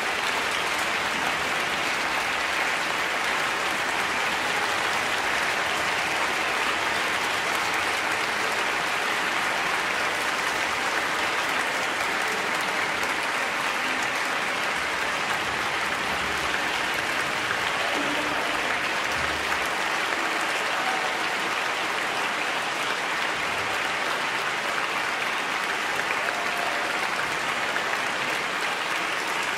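Large audience applauding steadily in a concert hall.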